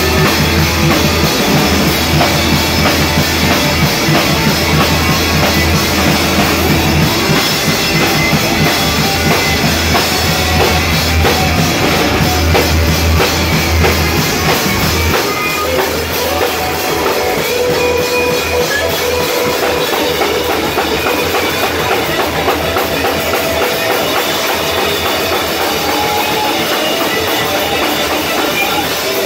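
Live rock band playing loud: drum kit, electric guitars and bass guitar. The heavy bass thins out about halfway through.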